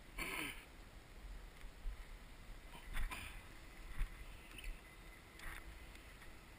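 Water sloshing faintly against the hull of a small fishing boat, with a few brief splashy rushes and two sharp knocks on the boat about three and four seconds in.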